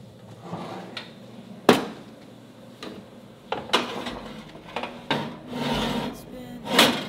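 Countertop oven door opened and a ceramic baking dish slid onto its metal wire rack: several sharp clacks with scraping between them.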